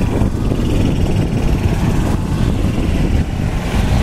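Wind buffeting the microphone: a loud, uneven low rumble with no clear pitch, as golf carts drive past close by.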